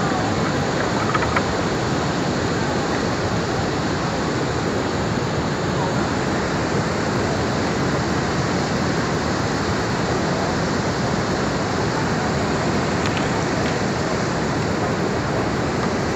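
Floodwater rushing past, a loud, steady, unbroken rushing noise.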